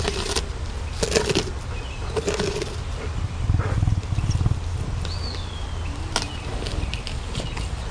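A tigon eating at a bone, making short, rough bursts of sound about once a second in the first few seconds and once more near six seconds in, over a steady low rumble.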